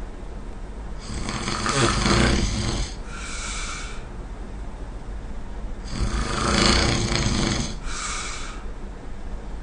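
A person snoring. Two breaths come about five seconds apart, each a long rough snore followed by a shorter, breathier sound.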